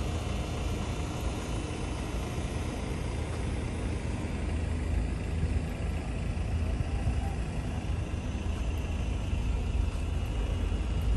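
Steady low rumble of a road vehicle running, with no sharp knocks or changes.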